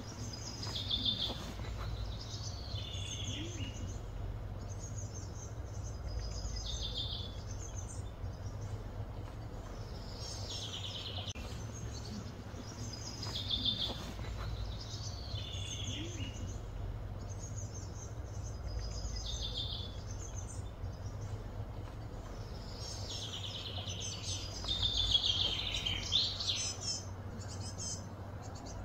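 Birds singing: short chirping phrases repeated every few seconds, with a longer, busier run of chirps near the end, over a steady low background rumble.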